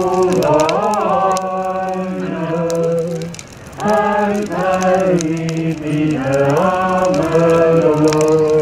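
People singing a slow song together in long held notes, the phrases broken by a short pause about three and a half seconds in.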